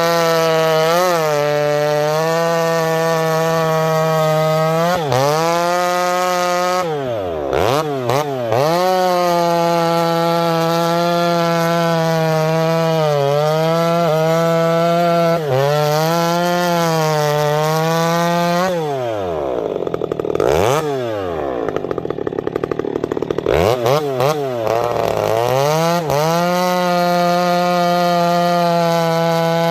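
Two-stroke chainsaw running at high revs, cutting wood. The revs sag each time the chain loads in the cut, and twice the engine drops right down toward idle and revs back up to full throttle.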